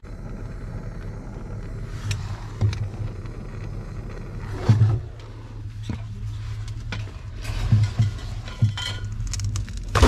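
A steady low hum runs throughout, with a few scattered knocks and scrapes of a valve, tools and a bottle being handled inside a steel waterer box over the water line.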